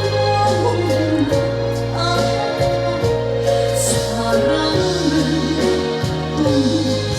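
A woman singing a slow trot song live over a backing track, her voice wavering with vibrato on held notes above a steady bass line.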